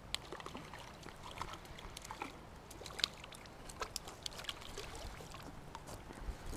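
Light splashing of water with scattered sharp clicks and ticks.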